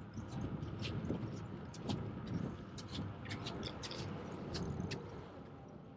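Steady low rumbling outdoor noise, with many short high-pitched ticks scattered over it.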